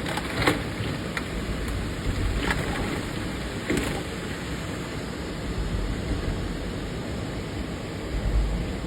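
Steady rushing noise of a windy rainstorm, with wind rumbling on the microphone and a few faint knocks.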